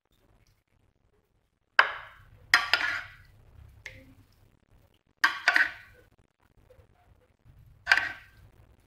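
Metal spoon clinking against the dishes as béchamel sauce is spooned out: five sharp clinks, a pair about two seconds in, another pair about five seconds in, and a single one near the end, each with a short ring.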